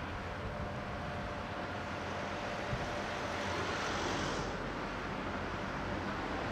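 Steady outdoor background noise of a shipyard: a low rumble and hiss with a faint steady hum, the hiss swelling for a moment a little past the middle.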